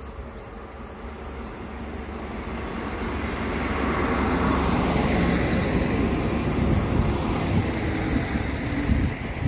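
SNCF X 73500-series single-car diesel railcar (X 73604) approaching and passing: a rumble of engine and wheels on rail that grows steadily louder over the first four seconds and stays loud as it goes by, with a short sharp knock near the end.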